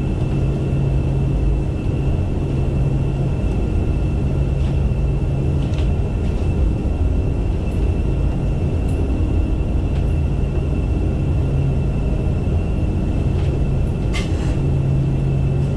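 Jet engines of a KC-135 Stratotanker running, heard inside the cabin: a steady low rumble with a thin, steady high whine over it.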